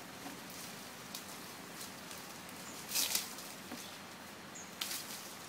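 Leafy branches rustling and swishing as an elephant handles its fodder: two short swishes, about three seconds in and near the end, with faint crackles of leaves between.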